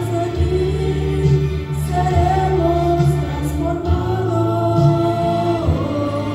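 A woman singing a worship song into a handheld microphone, holding long notes over instrumental backing.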